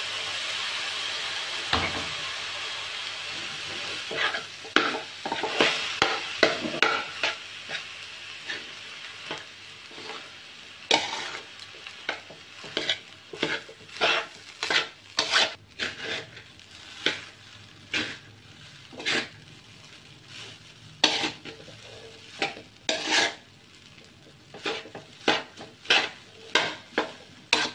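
Rice with shrimp paste stir-frying in a steel wok: sizzling, loudest at the start and fading over several seconds, with repeated scrapes and clacks of a metal spatula against the wok, irregular, about one or two a second, as the rice is tossed.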